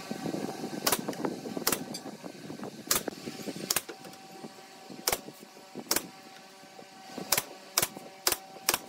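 Pneumatic nail gun firing nails into a wooden cabinet top: about ten sharp shots, roughly a second apart at first and quicker near the end.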